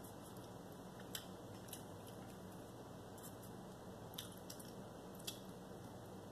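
Faint small clicks and taps, about five of them, from fingers handling a peeled hard-boiled egg on a paper plate, over a low steady room hum.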